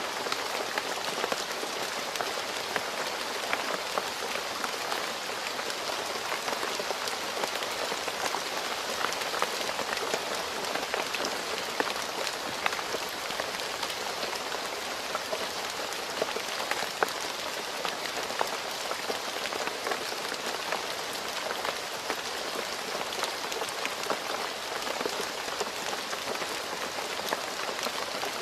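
Steady rain falling on a road surface: an even hiss of rainfall with many individual drops ticking through it.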